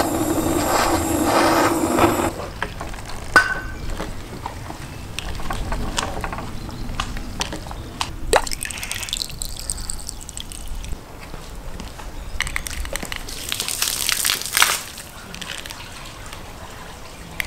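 A handheld gas torch hisses as it lights kindling in a stove's firebox and cuts off about two seconds in. After that come scattered clinks and water sounds, with a louder stretch of splashing about fourteen seconds in, as water is worked in the cast-iron kazan.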